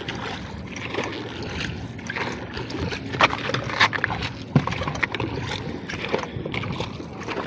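Water sloshing and splashing around a dragon boat's hull as the crew's paddles dip lightly, with a few sharper splashes between about three and four and a half seconds in.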